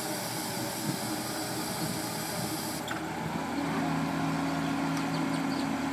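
Hyster forklift running while its hydraulics rotate a Cascade rotating clamp attachment. A steady hum sets in a little past halfway.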